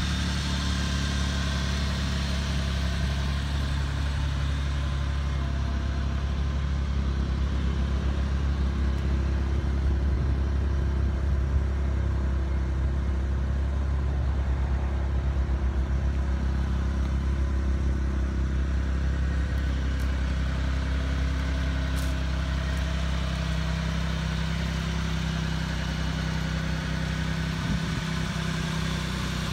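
Mitsubishi Minicab kei truck's small engine idling steadily.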